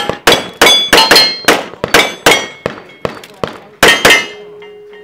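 Glock 34 9mm pistol fired in a fast string of about a dozen shots, each sharp report followed by the ring of a steel target plate being hit. The shooting stops about four seconds in.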